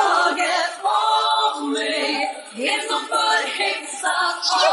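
Vocal music: a voice singing held notes that bend up and down in pitch.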